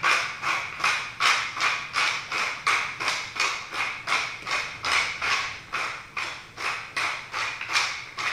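Tall wooden pepper mill being twisted back and forth, grinding pepper in a steady rhythm of about three grinding strokes a second.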